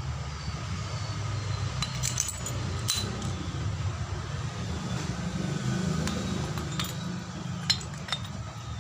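Light metallic clinks and taps of a Toyota Kijang Kapsul AC compressor's shaft and thrust-bearing plates being handled and fitted, checking how tightly the shaft sits, over a steady low hum. The clinks come a few at a time, at irregular moments.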